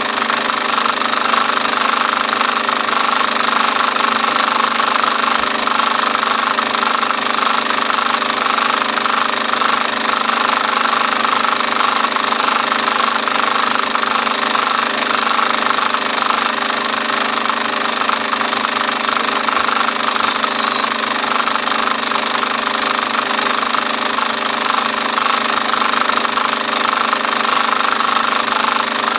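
Film projector running steadily, its motor and film transport making an even mechanical whir and chatter with no change throughout.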